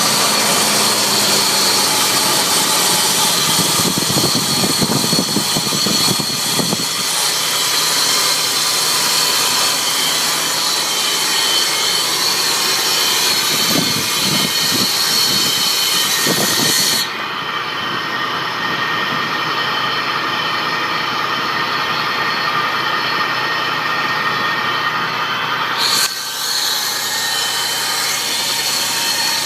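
Supercharged 3.3-litre V6 (VG33ER, Eaton M62 supercharger) of a 2002 Nissan Xterra running steadily under the hood. It makes a strange mechanical noise that the owner suspects comes from the supercharger. The high-pitched part of the sound drops away abruptly a little past halfway.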